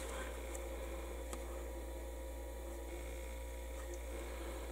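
Steady low electrical hum over quiet room tone, with a couple of faint small ticks about half a second and a second and a half in.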